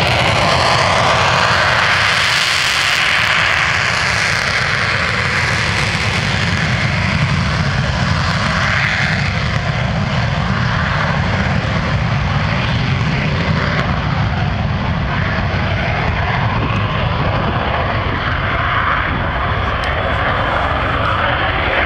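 Saab JAS 39 Gripen's single jet engine at full power with afterburner on the takeoff roll: a loud, steady jet noise, strongest in the first few seconds.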